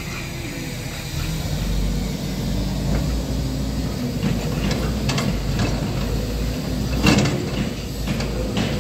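Diesel engines of Volvo excavators running under hydraulic load, the engine note rising about a second in, with a few scattered metallic knocks as the breaker-fitted excavator moves its arm. The breaker is not hammering.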